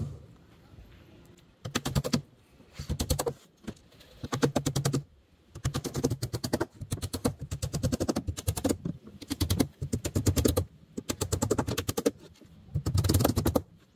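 Claw hammers driving nails into a plywood subfloor over wooden joists: bursts of quick hammer blows, broken by short pauses, starting a little under two seconds in.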